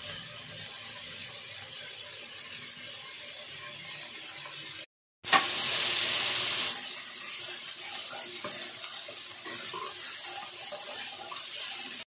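Stir-fried vegetables and instant noodle cakes sizzling in a wok while a silicone spatula stirs and scrapes them. The sound cuts out briefly about five seconds in, then the sizzling comes back louder for a second or so before settling to a steady hiss again.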